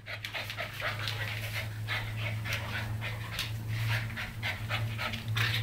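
Dogs, a Siberian Husky puppy and a German Shorthaired Pointer, panting rapidly in a rough play fight, about three breaths a second, over a steady low hum.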